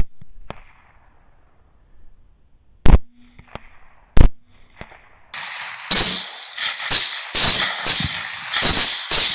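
Rifle gunfire during a night hog shoot. First come three loud single shots a few seconds apart, with fainter cracks between them; these sound dull, with no high end. From about five seconds in there is rapid fire, about two shots a second.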